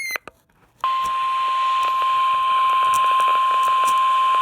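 Weather radio warning alarm tone near 1 kHz: one long, steady, unbroken beep that starts about a second in, after a short squelch burst and a brief dropout, and cuts off near the end with another squelch burst.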